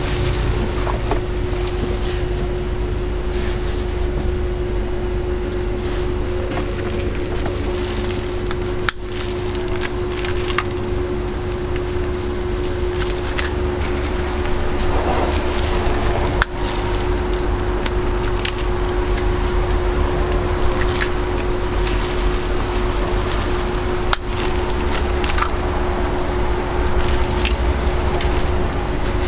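Food-stall preparation sounds: scattered light clicks and clatter of utensils and cookware over a steady hum and a low rumble.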